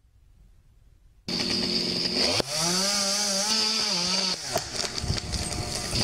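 Near silence for about a second, then a chainsaw starts up abruptly with a steady high whine. It is revved hard for about two seconds in the middle, then drops back.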